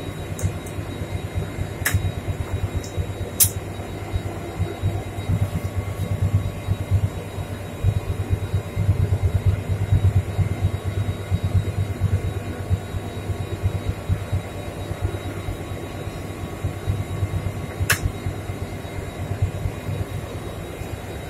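Steady low rumble of a WDG4D diesel locomotive running, heard from inside the locomotive, with faint steady machine tones above it. A few sharp clicks cut through, two in the first few seconds and one more later on.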